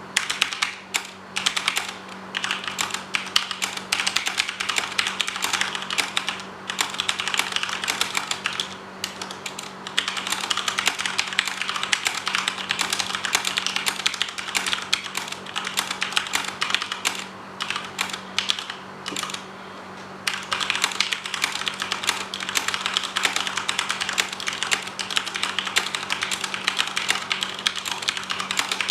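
Corsair K70 RGB mechanical keyboard with Cherry MX Red linear switches being typed on quickly, a fast run of key clacks that breaks off briefly a few times, near the middle and about two-thirds of the way through.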